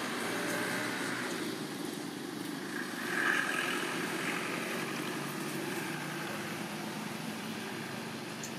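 Steady low rumble of road traffic, with a brief louder swell about three seconds in.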